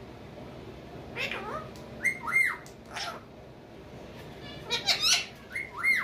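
Pet parakeets giving short, loud squawking calls in several clusters, some as arched notes that rise and fall in pitch.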